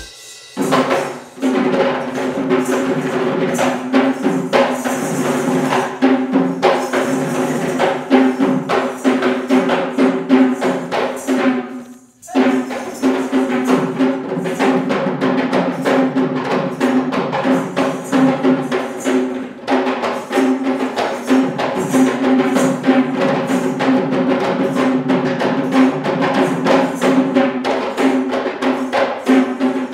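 Kandyan drums (geta bera) beaten by hand in a fast dance rhythm, over a steady droning tone. The drumming breaks off for a moment about twelve seconds in.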